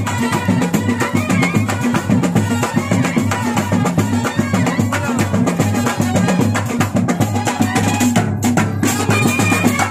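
Procession drum band of barrel drums and a bass drum playing a dense, fast, steady rhythm, with a melody line over it.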